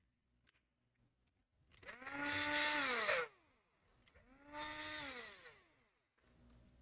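Small electric screwdriver motor run twice, about a second and a half and then a second, each time spinning up, holding and winding down as it drives laptop screws.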